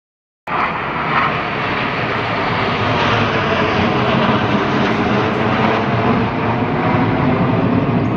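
Jet aircraft flying past: loud, steady engine noise, likely from the Surya Kiran team's BAE Hawk trainers. It starts abruptly about half a second in after a silent gap.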